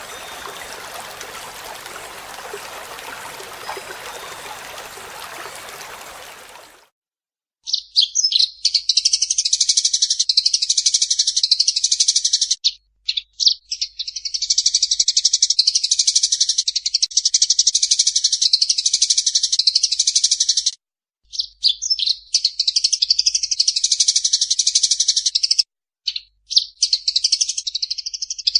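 A steady rushing noise like running water cuts off suddenly about seven seconds in. A second later, Eurasian tree sparrows start chattering in fast, dense, high chirps, the excited calls of sparrows fighting. The chirping runs in long bouts with a few brief breaks.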